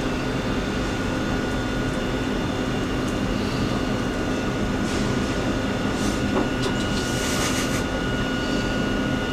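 Room tone: a steady hum and hiss, with a few faint rustles in the second half.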